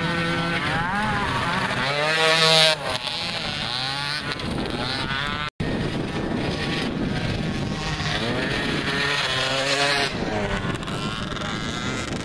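Youth mini quad (ATV) engines revving up and down as the quads race along the track, the loudest rise about two seconds in as one comes close. The sound cuts out for an instant just past the middle, then more revving follows as another quad approaches.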